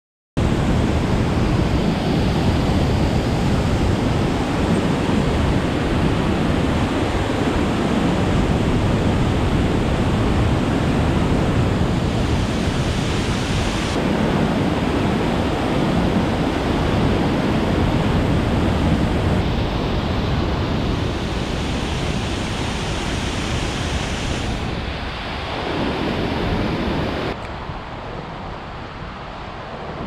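Steady, loud rush of a waterfall and the churning water in the pool below it. Near the end it drops to a quieter river flow.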